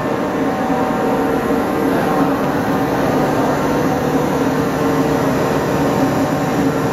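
A restored railway locomotive running while it stands: a steady mechanical hum over a hiss, holding level without any beat.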